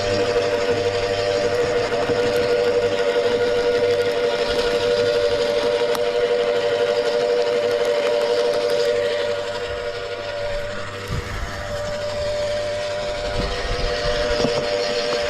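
Wood chipper running with a steady, high whine. About ten seconds in the sound dips and a few knocks come through, then it returns to the steady whine.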